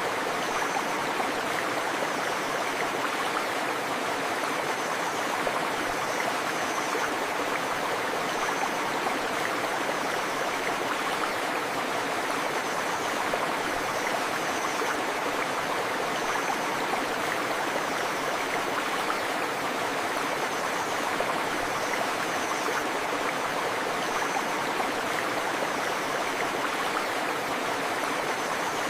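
A river flowing steadily with rain falling: an even, unbroken rush of water. Faint high chirps repeat every second or two above it.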